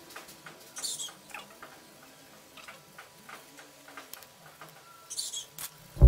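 Coloured pencil scratching on paper in short shading strokes, faint, with a few light ticks; two longer scratchy strokes come about a second in and again near the end.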